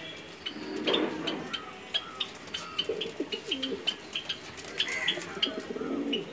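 Modena pigeons cooing in low, warbling phrases, about three times, with many short high ticks and chirps throughout.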